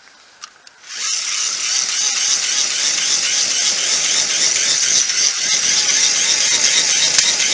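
Handheld fire-blower stoking tool blowing air into the embers of a fire pit, starting about a second in: a steady airy whirr with a slightly wavering whine, used in place of blowing on the fire by mouth.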